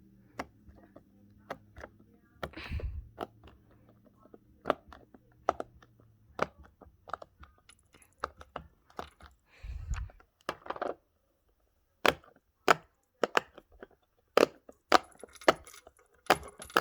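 Silicone pop-it fidget toy bubbles being pressed one after another: a string of short sharp pops at an uneven pace, coming faster over the last few seconds, with a couple of duller handling thuds.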